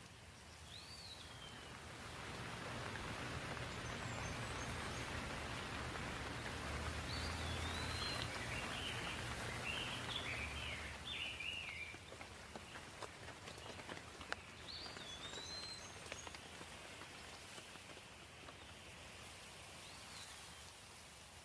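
Steady rain falling, with a bird chirping now and then in short curving calls and a quick run of chirps about seven to ten seconds in.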